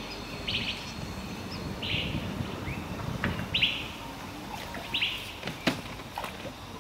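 A bird calling repeatedly, a short high chirp about every second and a half, with a sharp knock or two near the end.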